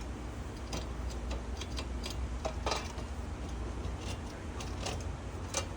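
Irregular light clicks and knocks, about eight of them at uneven intervals, over a steady low rumble.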